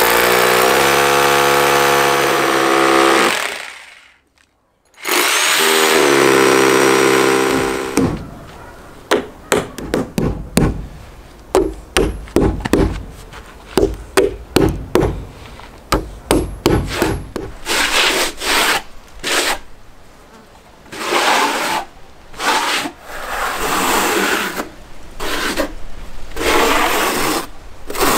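A corded hammer drill runs twice, boring through mineral wool insulation into the wall, stopping for about a second between runs. Then comes a quick run of hammer strikes driving in disc-headed insulation anchors, and then a steel trowel scrapes adhesive across fibreglass mesh in repeated strokes.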